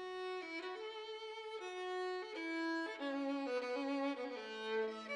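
Background music: a solo violin playing a melody, one held note after another, often two notes sounding together.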